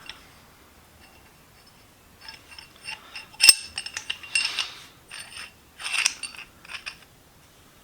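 Light metal clinks and rattles of steel parts being handled, with faint ringing, and one sharp click about three and a half seconds in.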